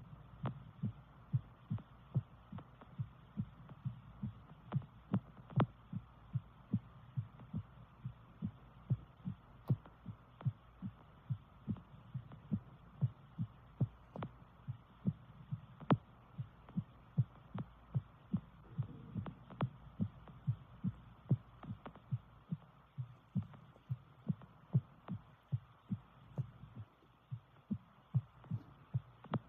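A woman's heartbeat, amplified: a steady, even train of dull low thumps over a faint steady hum.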